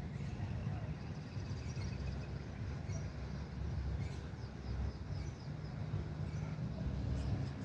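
Outdoor ambience: a steady low rumble, with small birds chirping faintly and repeatedly over it.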